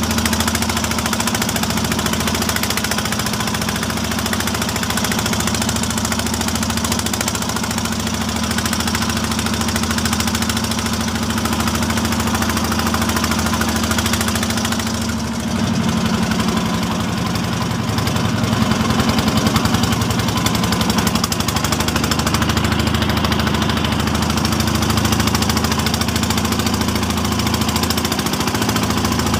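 Small wooden fishing boat's engine running steadily under way, a rapid knocking beat over the rush of water and wind. About halfway through the engine note dips briefly, then settles at a slightly different pitch.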